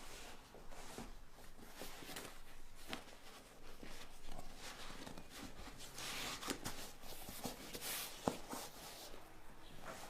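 Irregular rubbing and scraping of hand work, with a few light knocks and clicks; one sharper click comes about 8 seconds in.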